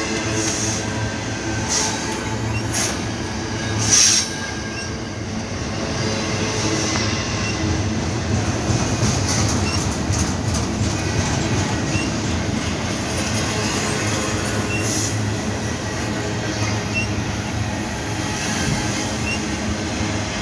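Freight train rolling by with a steady heavy rumble and clatter of its wagons, and high-pitched squealing from the wheels. There is a brief louder burst about four seconds in.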